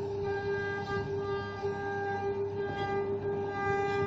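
Wood lathe running with a steady pitched hum, a hand-held turning tool cutting the spinning wood beneath it.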